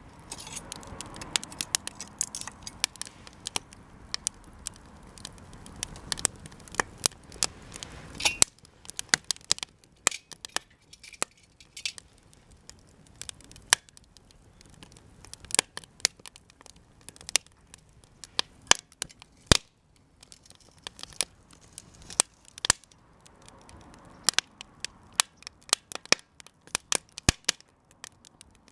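Japanese cedar offcuts burning in a campfire, crackling with irregular sharp pops and snaps. A soft steady rush sits under the pops for about the first eight seconds, then cuts off suddenly.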